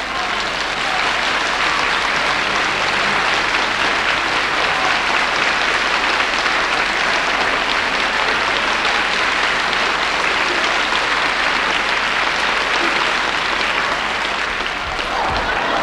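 Audience applauding, a dense steady clapping that swells up at the start and holds, easing slightly near the end.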